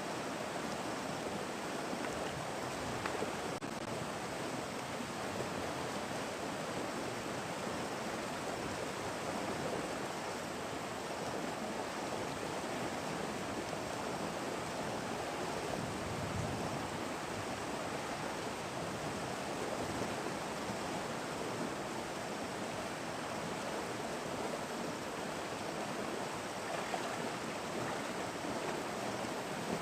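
Steady rushing of river water, an even wash of noise with no break.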